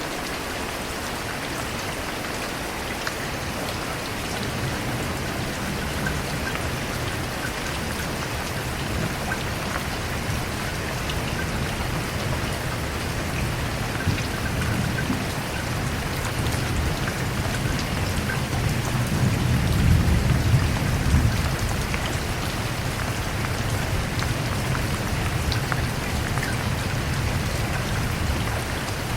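Steady rain falling, with low rolling thunder that builds from a few seconds in and is loudest about two-thirds of the way through before easing off.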